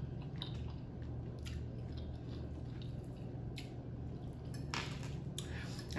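Close-miked chewing: soft, wet mouth sounds with a few faint short clicks, over a steady low hum.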